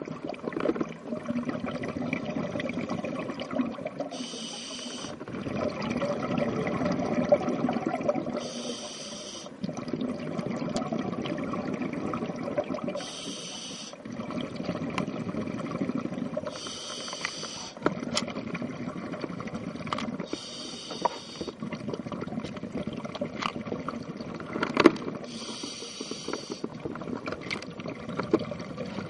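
Scuba diver breathing through a regulator underwater: a short hiss of inhalation about every four seconds, each followed by the rumbling bubbles of the exhaled breath. Scattered clicks throughout, with one sharp knock near the end.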